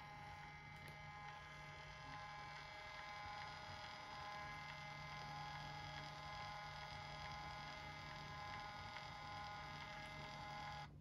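Phomemo D30 handheld thermal label maker printing and feeding out label tape: a faint, steady whine that cuts off suddenly near the end as the printing finishes.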